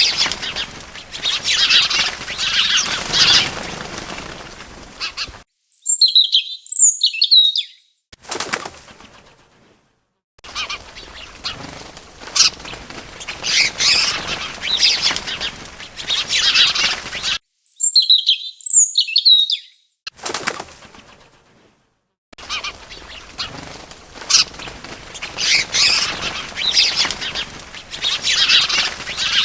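Small birds chirping and fluttering in a dense, looping chorus. Twice it drops out, and a single bird gives a quick cluster of about four high chirps, once about six seconds in and again the same way about eighteen seconds in.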